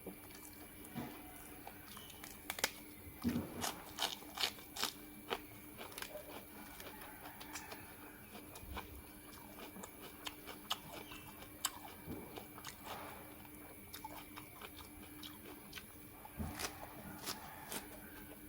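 A person chewing and crunching food close to the microphone, with a cluster of sharp crunchy bites a few seconds in and more near the end.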